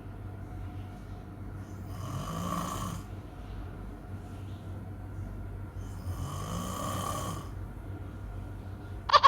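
A man snoring: two long breathy snores a few seconds apart. Right at the end a much louder, fast-rattling snore begins.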